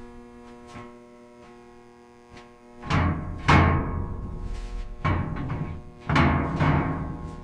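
Background music: a held note, then deep booming drum hits from about three seconds in.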